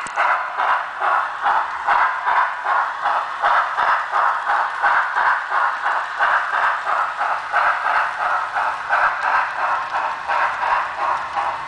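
HO scale Union Pacific 844 steam locomotive model's DCC sound decoder playing a steady steam exhaust chuff through its small onboard speaker, about two to three chuffs a second, as the model runs.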